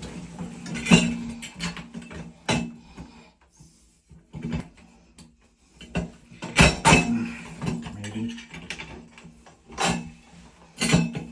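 Background acoustic guitar music, with several sharp clicks or knocks over it.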